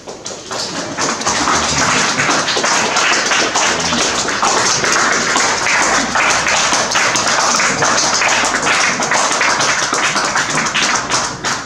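Audience applauding: a dense patter of many handclaps that swells over the first second, then holds steady.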